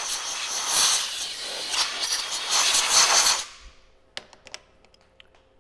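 Compressed air hissing from an air blowgun for about three and a half seconds, then fading out, followed by a few light clicks.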